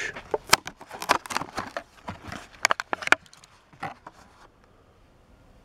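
Clear plastic blister of a Hot Wheels card pack being pushed and peeled open: a run of sharp plastic clicks and crackles that dies away after about four and a half seconds.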